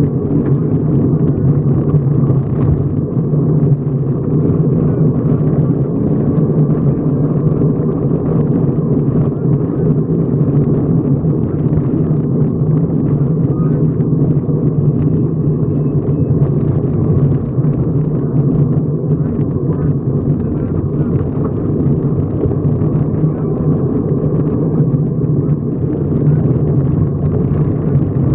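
Subaru rally car at speed on a gravel stage, heard from inside the cabin: a steady engine and drivetrain drone with constant crackling of gravel against the underbody and wheel arches.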